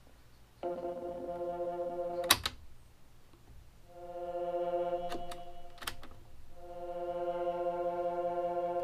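A small keyboard synthesizer holding one steady organ-like note, which stops and starts again a few times. Sharp clicks come about two seconds in, the loudest sound, and twice more around five to six seconds in.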